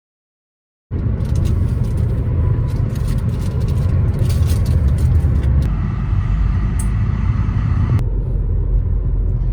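Steady low rumble of a moving car, starting suddenly about a second in after silence, with abrupt shifts in tone in the middle and later.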